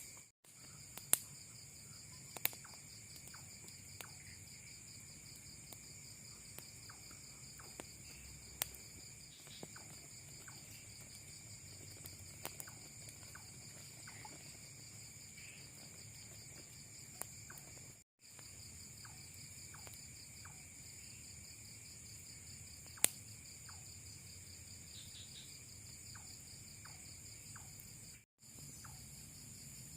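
Night insects such as crickets trilling steadily at a low level, with a few sharp clicks scattered through. The sound drops out briefly twice.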